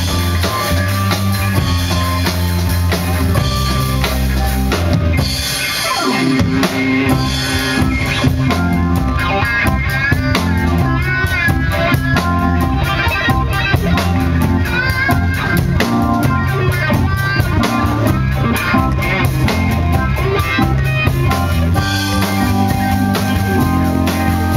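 Live rock band playing: drum kit keeping a steady beat under electric guitar and bass, with a brief break about five seconds in.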